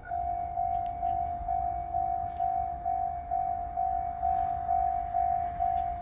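Japanese railway level-crossing alarm switching on and ringing its repeated 'kan-kan' warning tone, about two strokes a second, warning that a train is coming.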